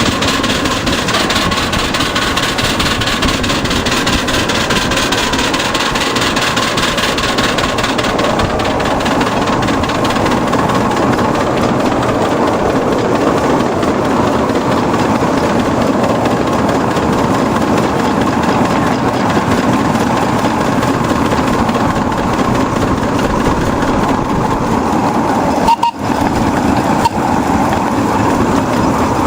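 A vehicle running steadily on the move, an even mechanical and rolling noise, broken briefly by a sharp cut near the end.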